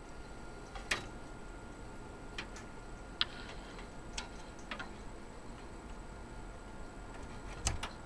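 Small plastic clicks and taps, about six at irregular intervals with the loudest near the end, as a SATA data cable and connectors are handled and plugged into a hard drive.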